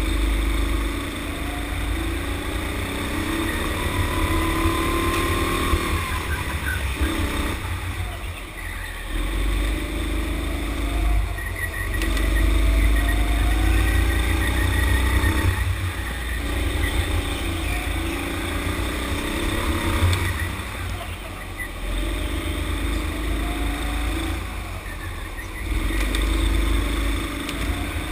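Sodi rental go-kart's motor heard from on board, its pitch climbing as the kart speeds up and dropping as it eases off into the corners, over and over, with a steady low rumble of the kart underneath.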